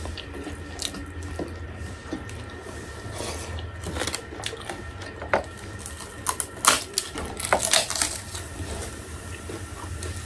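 Wet eating sounds from two people eating rice by hand: chewing, lip smacks and small clicks, scattered and busiest from about three to eight seconds in, over a steady low hum.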